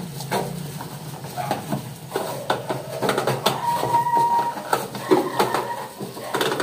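Kitchen range hood's blower running with a steady low hum, while a plastic bag held at its exhaust outlet rustles and crinkles irregularly in the airflow, a sign of strong suction.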